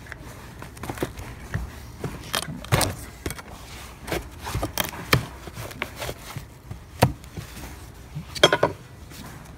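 Flat metal pry bar scraping and prising crumbly rotted wood out of a window sill: irregular scrapes, knocks and crunches, with a louder cluster near the end.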